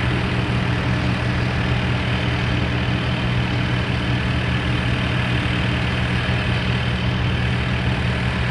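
Heavy truck diesel engine idling with a steady, even hum.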